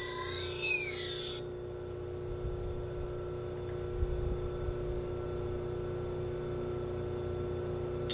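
Knife blade ground against a spinning CBN grinding wheel, a high rasping scrape, for about the first second and a half; then the blade comes off and only the grinder's motor hum remains.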